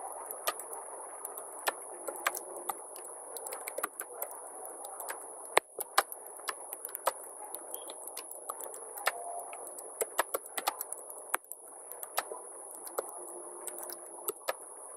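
Computer keyboard keys clicking as someone types a sentence, in irregular taps with short pauses, over a steady background hiss.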